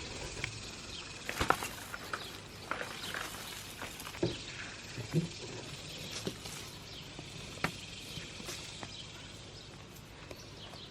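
Hands rummaging through dumped potting soil to find potatoes: soft rustling with scattered light knocks and clicks.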